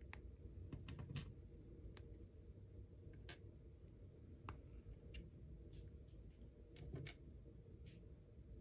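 Small LEGO plastic bricks clicking faintly as they are handled and pulled apart by hand: a dozen or so light clicks at irregular intervals, over a faint low hum.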